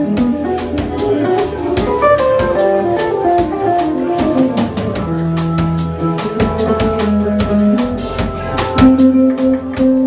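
Live instrumental band of organ, electric guitar, saxophone and drum kit playing, the drums keeping a busy beat under guitar and sustained organ-like notes.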